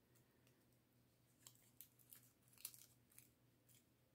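Near silence with a few faint, short rustles and light ticks of small paper craft pieces being handled, clustered in the middle of the stretch.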